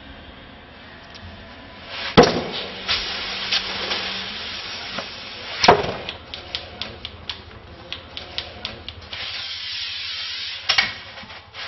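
Large polystyrene foam blocks being handled and glued: two sharp knocks about two and six seconds in, a run of light clicks and taps, and a spray hiss from an aerosol can lasting over a second near the end.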